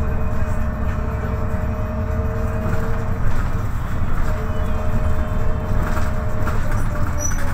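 MAN NL263 city bus driving, heard from the front of the passenger cabin: a steady low rumble of engine and road. Over it runs a steady whine that breaks off about three seconds in and returns about a second later.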